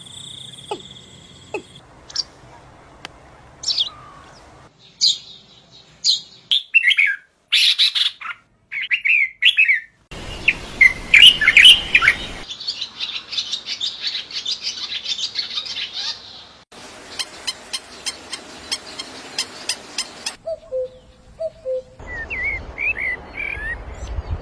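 Small birds chirping and calling in a run of short spliced recordings, the background changing abruptly several times. The calls are mostly quick high chirps, with a fast run of even ticking notes and a few lower whistled notes near the end.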